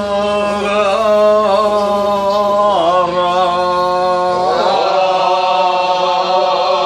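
Men singing a tezutsu kiyari-uta, a traditional Japanese work chant, in long drawn-out, wavering notes; the melody drops about three seconds in, and a new phrase swells up near the fifth second.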